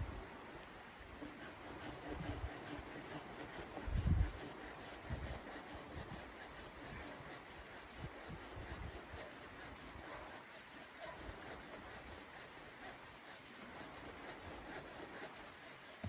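Red-handled folding hand saw cutting a thin, pale-barked branch in steady back-and-forth strokes. A dull low thump sounds about four seconds in.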